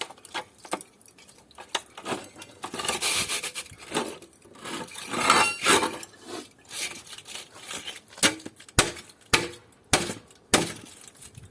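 Metal parts of an air conditioner being handled during dismantling for scrap: clinking, rattling and scraping, then a run of sharp knocks about every half second near the end.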